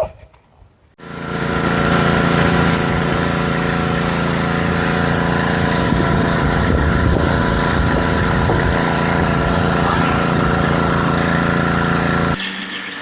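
A motor running steadily with an even hum. It starts suddenly about a second in and cuts off suddenly near the end.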